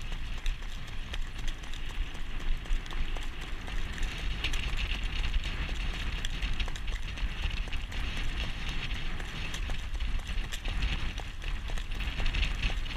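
A young Standardbred harness horse jogging, its hoofbeats clip-clopping steadily on the road, heard from the jog cart it pulls, over a steady low rumble.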